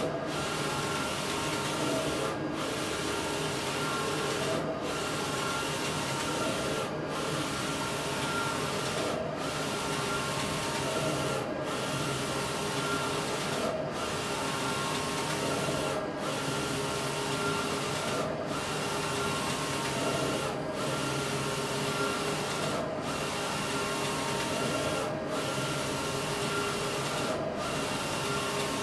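Roland wide-format printer printing sign film: a steady machine hum and hiss broken by a short dip about every two and a quarter seconds as the print-head carriage makes its passes.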